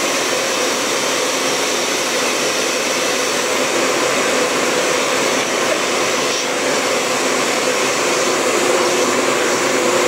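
Vacuum cleaner running steadily through its hose and brush nozzle: a constant rushing noise with a steady hum under it.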